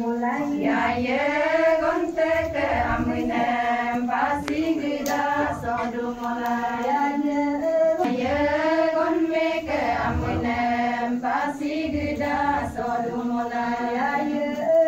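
A group of women singing a song together, with long held notes and slow rises and falls in pitch.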